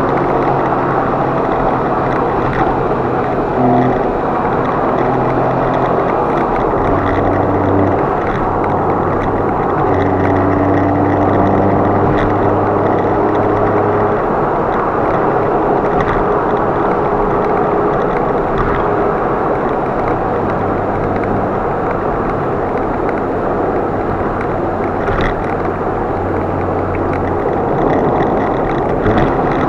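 Car driving, a steady rush of road and engine noise with humming tones that change pitch every few seconds.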